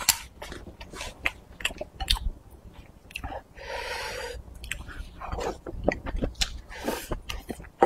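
Close-up wet chewing and lip-smacking of someone eating a spicy broth dish, many short clicks and smacks, with a slurp lasting almost a second about halfway through as a leafy strip is sucked in from the chopsticks, and a shorter one near the end.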